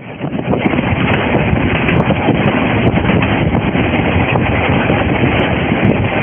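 Narrow-gauge steam train running, heard from a carriage window as a steady rush of noise. Heavy wind buffets the mobile phone's microphone.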